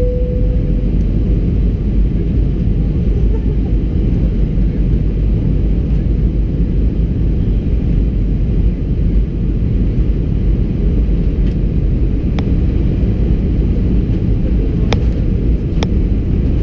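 Steady cabin roar of an Airbus A320-200 in flight: engine and airflow noise, a constant low rumble, with a few sharp clicks near the end.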